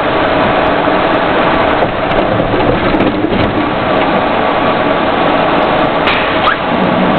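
Loud, steady cabin noise inside a moving armoured military vehicle: engine and road rumble with a faint steady whine running through it.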